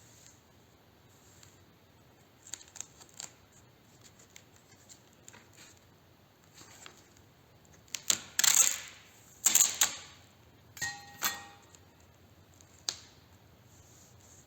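Workbench handling: a few light clicks, then two loud ripping, rasping pulls about a second each as adhesive-backed abrasive tape is pulled and peeled during fitting to a sanding block. A brief squeak with clicks and one last click follow.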